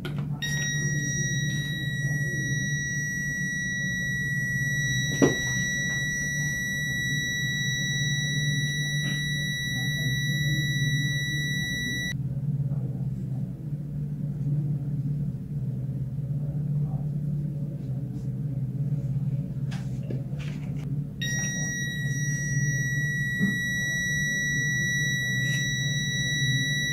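Buzzer of a 555-timer rain alarm circuit sounding one steady high-pitched tone, set off by water on the rain sensor plate; it cuts off about twelve seconds in and starts again about nine seconds later. A low steady hum runs underneath, with a sharp tap about five seconds in.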